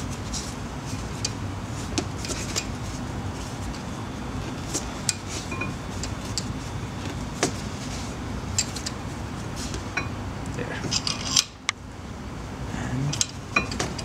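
Scattered metallic clicks and clinks of a screw-type brake caliper piston compressor as its T-handle is turned to push the caliper piston back into its bore, coming more thickly a little before the end, over a steady background hiss.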